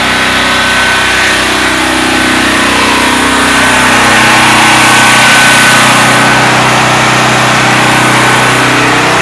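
Portable generators running steadily, a loud engine hum that grows louder toward the middle as one is passed up close.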